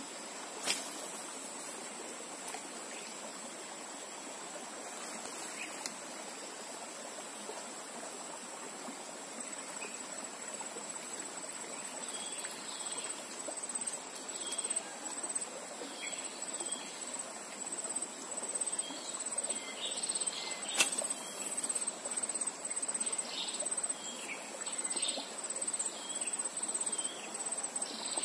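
A high, steady insect drone that begins pulsing about halfway through, over the steady rush of fast-flowing stream water. Two sharp clicks cut through, one about a second in and a louder one about two-thirds of the way through.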